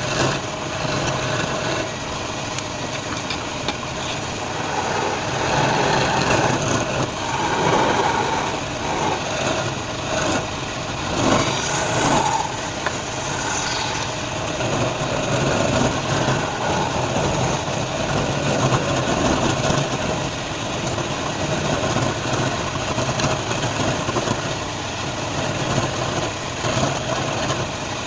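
Wood lathe running with a steady motor hum, while a turning tool scrapes and cuts the spinning wood at times, most busily from about five to thirteen seconds in.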